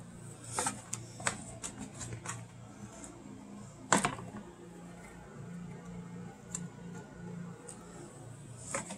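Scattered light knocks and clicks of a metal scale bowl and tomatoes being handled on a wooden bench, the sharpest about four seconds in, over a faint low steady hum.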